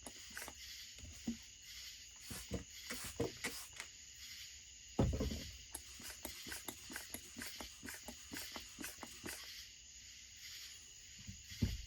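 Scattered small clicks and knocks of tools and parts being handled at a workbench, with a heavier thump about five seconds in and another near the end, over a steady high-pitched chirping hum.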